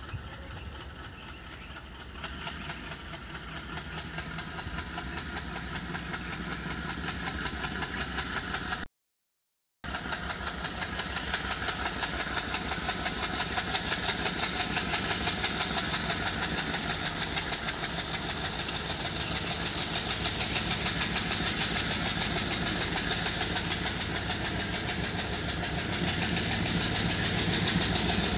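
Single ALCO diesel locomotive chugging as it pulls a passenger train away from standstill under load, throwing out black smoke. Its engine beat grows steadily louder as it accelerates and draws nearer, with a brief cut-out about nine seconds in.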